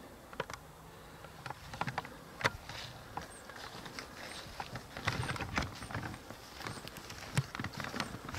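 Footsteps crunching through dry leaf litter and brush, with stems and twigs crackling; the steps are sparse at first and come thicker from about halfway through.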